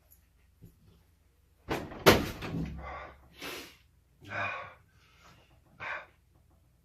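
Hard plastic casing of an Xbox 360 knocking and clattering as it is pried and pulled apart, with two sharp knocks close together about two seconds in, then several shorter clicks and scrapes.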